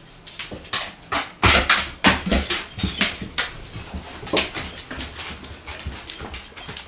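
A German shorthaired pointer's paws and claws clattering and scrabbling on the stair steps in a quick, irregular string of clicks and knocks as it climbs with difficulty, its legs and hips painful.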